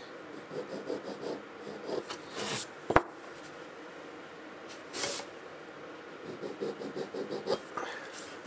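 A steel scriber scratching layout lines into marking blue on a metal bar, in short faint strokes, with the light scrape of a steel rule on the bar; one sharp click about three seconds in.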